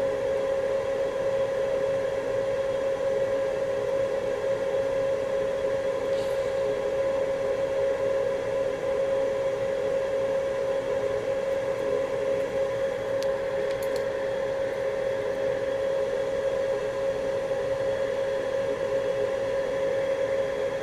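A small electric fan motor runs with a steady, even whining hum built on one strong tone, with a few faint ticks about six seconds in and again around thirteen to fourteen seconds.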